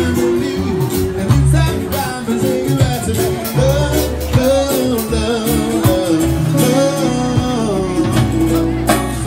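Amplified music from a tented stage through PA speakers: a singer over plucked guitar with a steady beat.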